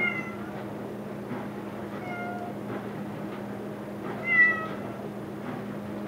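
A cat meowing three times, about two seconds apart, the third call the loudest, each short and dropping slightly in pitch. Underneath is a steady low hum and faint knocks from handling the paint roller.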